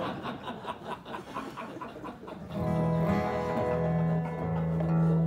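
Acoustic guitar strummed, with quick light strokes at first and then fuller, ringing chords from about two and a half seconds in, as a song begins.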